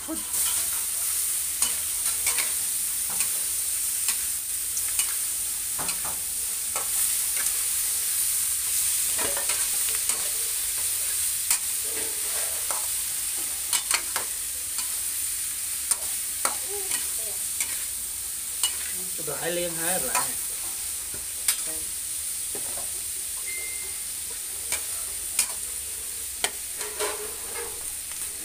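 Snails in their shells stir-fried in a steel wok: a steady sizzle, with a metal spatula scraping and clicking against the wok and the shells at irregular intervals.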